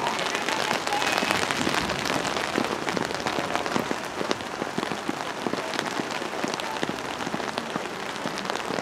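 Steady patter of rain, a dense crackle of drops.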